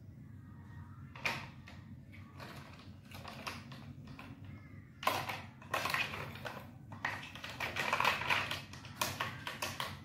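Plastic toy dump truck being pushed across a tile floor by a cat, its wheels and plastic body clattering in quick rattles: a short burst about a second in, then a longer run of rattling from about halfway to near the end.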